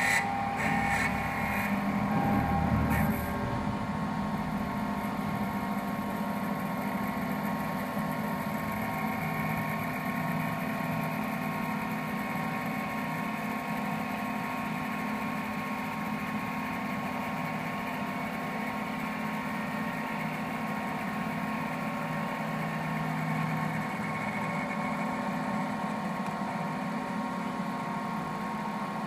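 An automatic bead-making wood lathe runs steadily as its cutter turns beads from a spinning wooden blank. The motor and spindle hum with several held tones, and the sound is louder and rougher for the first three seconds or so.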